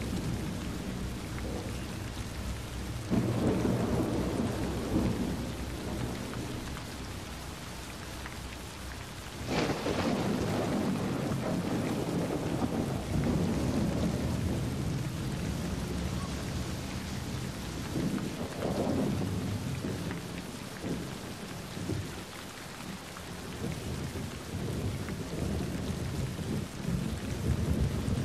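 Recorded rain falling steadily, with low rumbles swelling up several times; the strongest starts sharply about ten seconds in.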